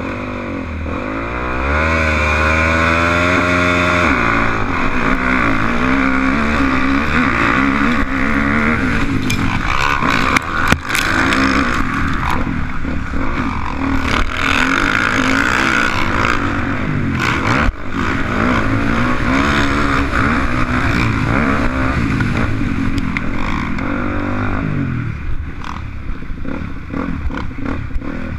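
Motocross dirt bike engine revving hard and changing pitch as the throttle opens and closes, climbing steeply in the first few seconds. A couple of sharp knocks come through around ten and eighteen seconds in.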